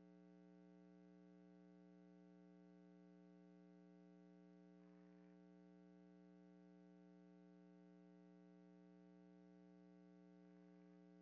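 Near silence with a faint, steady hum made of several held tones.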